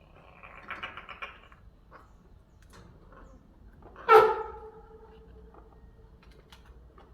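Young pet crow calling: a short rattling sound about a second in, then about four seconds in one loud call that starts sharply and trails off into a held, fading note.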